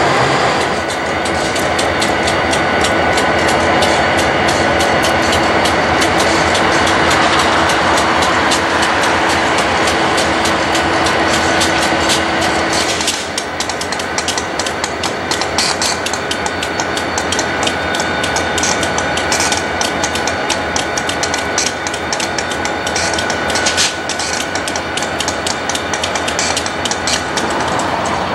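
Diesel locomotives running and moving on the rails, their wheels clicking and clacking over the track. The sound drops and changes abruptly about thirteen seconds in, when a second locomotive takes over.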